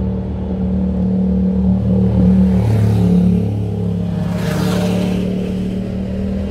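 Background music: an ambient track of held low notes, with two brief swells of hiss near the middle.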